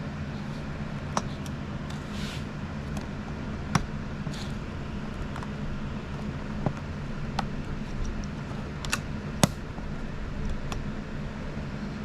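Scattered small clicks and taps of hard plastic parts being handled and pried while the buffer component of an Anycubic Ace Pro filament unit is taken apart, about eight in all, over a steady low hum.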